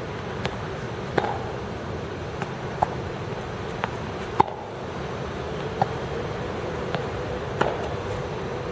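Tennis balls being struck by rackets and bouncing on the court during a rally drill: sharp pops roughly once a second at an uneven rhythm, over a steady background hum.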